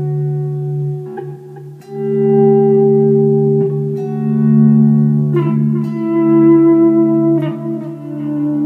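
Guitar in drop D tuning playing a droning ambient riff through a Line 6 DL4 delay set to auto-volume echo, so the notes swell in and ring on under one another. New notes enter about two, five and a half, and seven and a half seconds in.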